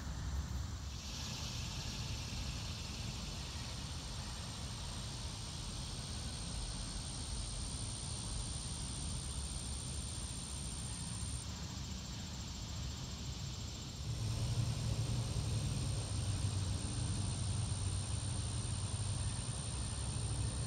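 Insects calling in a steady, high, even drone over outdoor ambience, with a low rumble underneath that grows louder about two-thirds of the way through.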